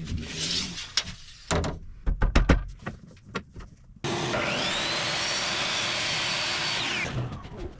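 Knocks and clatter of things being handled. About four seconds in, an electric power tool motor starts with a rising whine, runs steadily for about three seconds, then winds down and stops.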